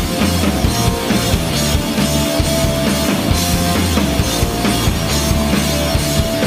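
Background music with a driving drum beat and a stepping bass line.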